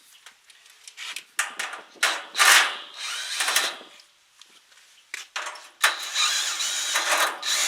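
Power drill driving out the screws of an air-conditioner condenser's top panel: a few short runs, then a longer steady run with a high whine near the end.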